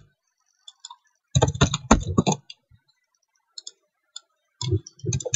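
Computer keyboard keystrokes as a password is typed: a quick run of key clicks about a second and a half in, then a few single taps.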